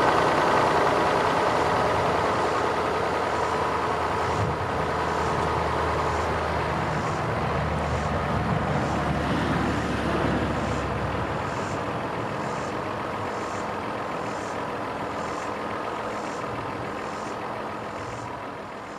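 2001 Ford Taurus 3.0 L Duratec V6 idling steadily, with a faint regular tick about twice a second, after its coolant water outlet has been replaced. The sound fades gradually toward the end.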